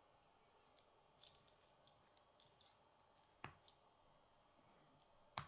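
Plastic K'nex connectors and rods clicking as they are handled and snapped together: faint scattered ticks, with two sharper, louder snaps, one about three and a half seconds in and one near the end.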